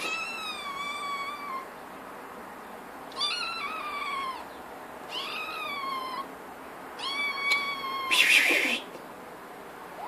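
Grey kitten meowing four times, each a short, high call that falls in pitch. Near the end a short, loud hissing burst.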